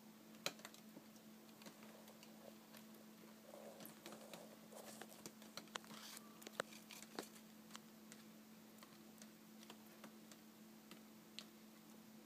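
Near silence with a steady low hum. Over it come scattered faint clicks and taps of handling, with a soft rustle about four to six seconds in.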